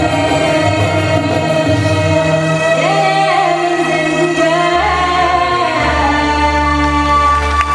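Live zapin music: a woman sings a melody with long held notes into a microphone, backed by a band of acoustic guitars and an oud (gambus) with a steady bass line.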